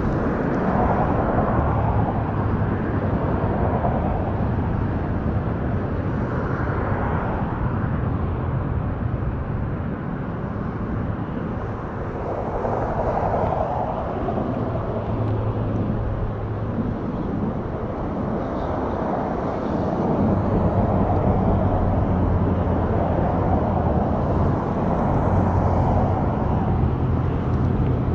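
Steady rumble of highway traffic, with passing vehicles swelling and fading every few seconds.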